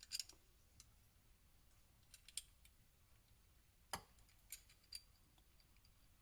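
A few faint, sharp metal clicks and taps as 1911 pistol parts, the guide rod and barrel, are fitted into the slide by hand, the loudest about four seconds in; otherwise near silence.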